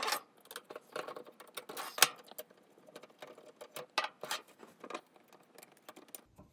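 Irregular light clicks, taps and rustles of hands handling small plastic and metal parts of an RC sprint car body and cage, with one sharper knock about two seconds in.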